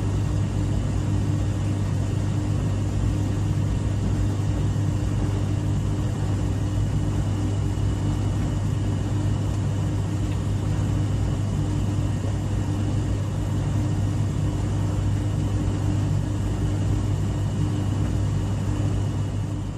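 Clothes dryer running with a steady low hum and rumble.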